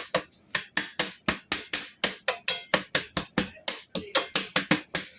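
Knife chopping on a cutting board: quick, even strokes at about five a second.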